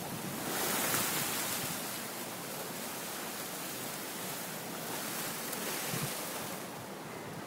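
Steady rushing hiss of choppy sea water and wind, a little louder about a second in.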